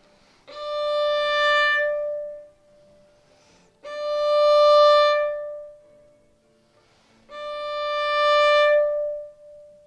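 Solo violin playing the same bowed D three times, each a long note of about two seconds that starts cleanly, swells in tone and then fades away into a short ringing echo. This is a tone exercise: each note goes through a beginning, a development and an echo.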